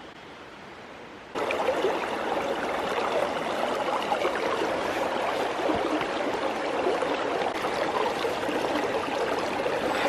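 Running water of a stream, a steady babbling rush with gurgles, which cuts in abruptly about a second in after a faint hiss.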